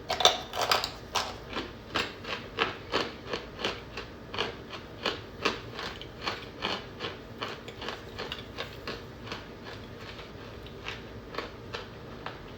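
Someone crunching and chewing hard baked cornstarch chunks close to the microphone, about two crunches a second, softer after about seven seconds.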